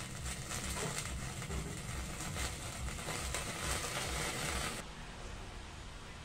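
Pot of fish and kangkong soup simmering: a steady crackling hiss that cuts off abruptly about five seconds in, leaving a faint low hum.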